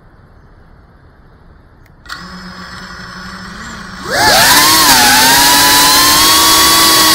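Brushless motors and propellers of a GEPRC Cinelog 35 FPV quadcopter. They start spinning at idle about two seconds in with a steady hum, then throttle up just after four seconds in with a quick rising whine into a loud, steady buzz as the drone takes off, heard through its onboard camera.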